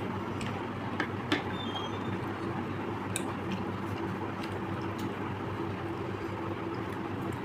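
Eating sounds: a few sharp clicks, about a second in and again near three seconds, over a steady low hum.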